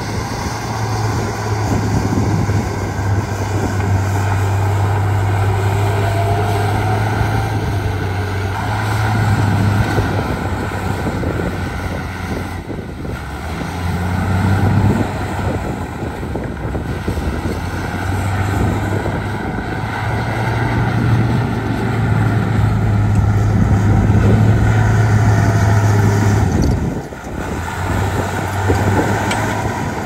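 Heavy diesel earthmoving machinery running and working, a steady low engine drone that eases off briefly about halfway and again near the end.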